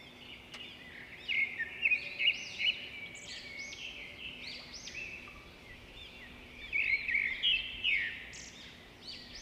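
Small birds chirping and twittering in a busy chorus of quick rising-and-falling calls over a faint steady hum, louder about a second and a half in and again near the end.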